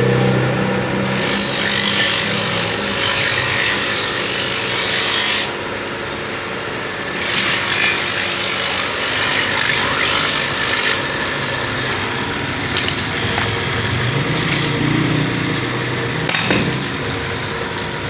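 Knife blade being sharpened: a continuous rasping scrape of steel against an abrasive, changing in character a few times.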